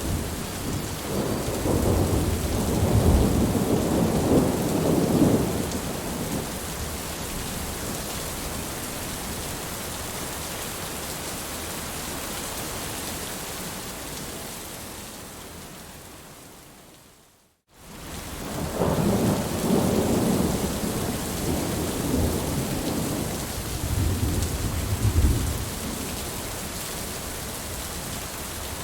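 Heavy thunderstorm: steady rain with two long rolls of thunder, one near the start and one about two-thirds through. In between, the whole sound fades out to silence for a moment and comes straight back in.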